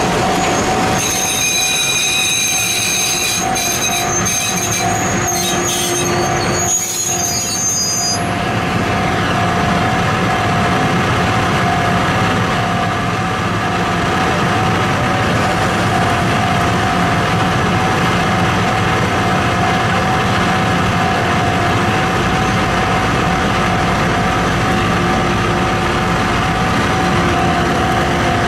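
DE15 diesel-hydraulic locomotive running steadily as the train creeps through a shunting move. High-pitched wheel squeal starts about a second in and stops about eight seconds in.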